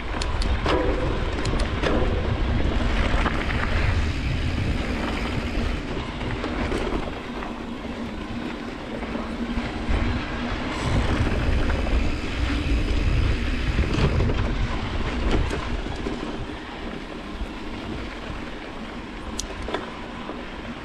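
Mountain bike riding fast over a rough dirt road: wind buffeting the microphone and the tyres crunching over gravel, with the bike rattling and clicking on the bumps. The rush swells and eases with speed and is calmer near the end.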